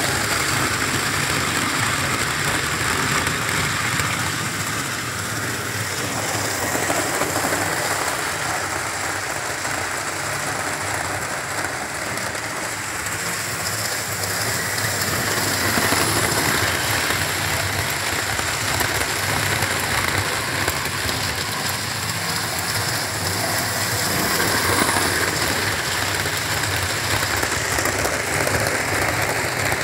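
Model Class 47 locomotive hauling a train of model coaches around a model railway layout: a steady whirring and rattling of the motor and wheels on the track, swelling slightly now and then.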